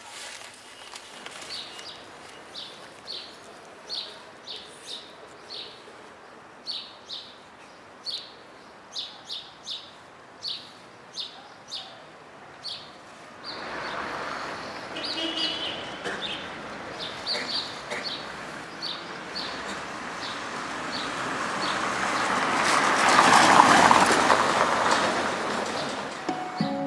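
Small birds chirping: short high chirps, one or two a second, over a faint steady hiss. From about halfway a broad rushing noise swells up, loudest near the end, then eases off.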